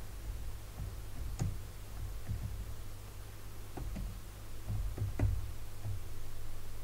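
Computer keyboard keystrokes: a handful of irregular, scattered clicks over a steady low hum.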